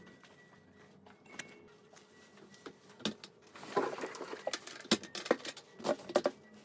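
Light, irregular clicks and taps, starting about three seconds in and coming more often toward the end.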